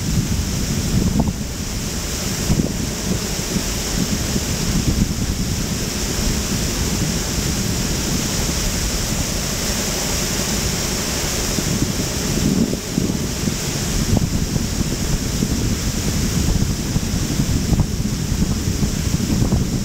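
Wind buffeting the microphone, a heavy fluctuating rumble over a steady rushing hiss.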